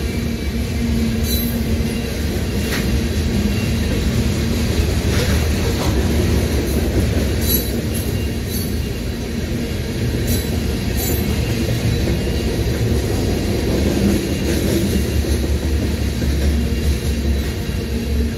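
Freight train of covered hopper cars rolling past: a steady low rumble of steel wheels on the rails, with a few sharp clicks along the way.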